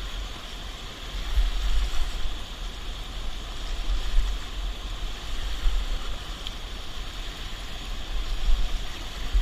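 Steady rush of flowing river water, with gusts of wind buffeting the microphone in a fluctuating low rumble.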